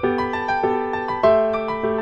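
Background piano music: a gentle melody of struck notes, a new note or chord about every half second, each decaying before the next.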